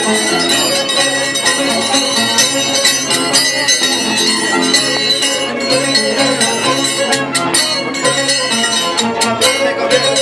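Andean scissors-dance music: violin and harp playing a steady tune while the dancers clash their tijeras, the pairs of iron blades that ring like small bells, with a few sharper clinks from about seven seconds in.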